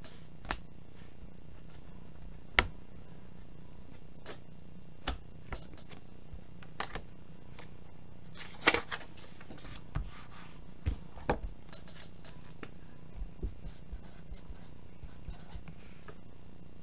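Irregular small clicks and taps of hands handling things at a desk, with a short rustle about nine seconds in, over a steady low hum.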